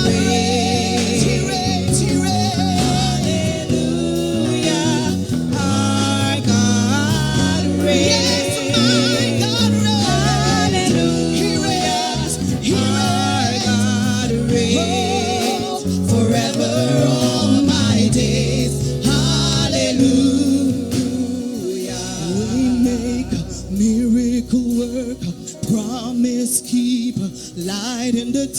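Gospel worship singing with vibrato over a band accompaniment with steady bass notes. The deepest bass thins out about 22 seconds in, leaving a lighter accompaniment.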